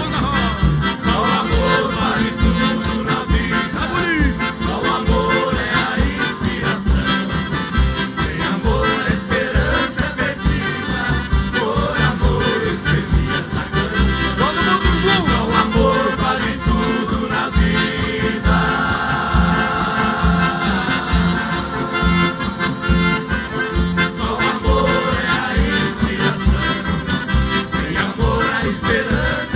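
Live Brazilian country band music, an instrumental passage without singing, over a steady beat.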